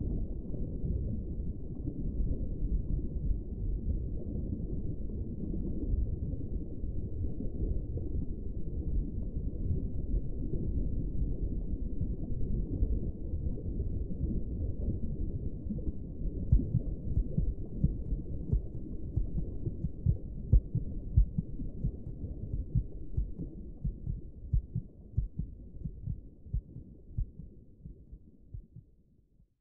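A low, muffled rumble with irregular thuds that grow more separate toward the end, fading out over the last few seconds.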